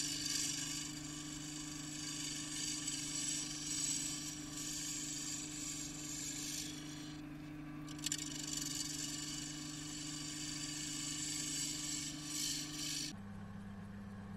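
Record Power DML305 wood lathe running with a steady motor hum while a turning tool cuts the spinning cherry bowl blank, a hissing cutting sound that breaks off briefly in the middle. Near the end the cutting stops and the hum drops to a lower pitch.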